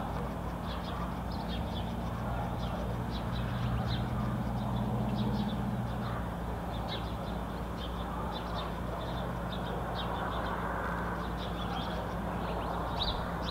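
Small birds chirping in quick, scattered high notes over a steady low mechanical hum, which swells for a few seconds in the middle.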